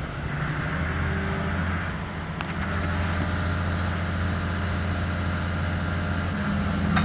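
An engine running steadily with a low, even hum, growing slightly louder about a second in.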